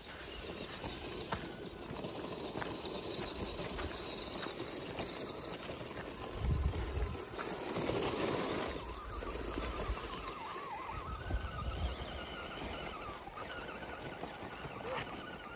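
Radio-controlled scale crawler trucks driving over dry leaves and up a loose gravel slope: the electric motors and gear drivetrains whine, with the tyres crunching and scrabbling on the ground. Two brief low rumbles come about six and a half and eleven seconds in.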